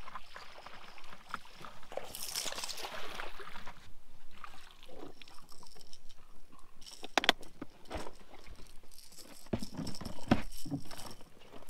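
A landed largemouth bass shaking on the line while its underspin lure and hooks jangle and rattle as it is swung aboard and unhooked, with a few sharp knocks in the second half.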